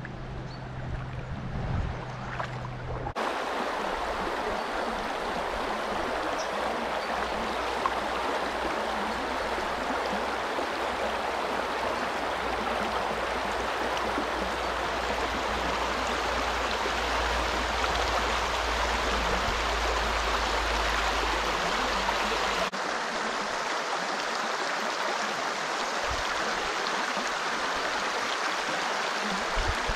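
Shallow river running over a stony riffle: a steady rush of flowing water that sets in abruptly about three seconds in.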